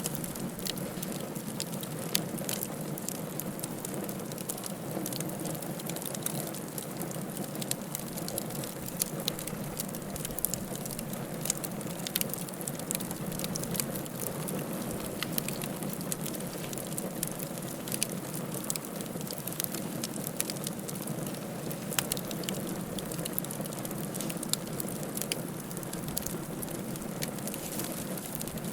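Wood fire crackling in a fireplace: a steady hiss with frequent irregular snaps and pops, a few of them louder.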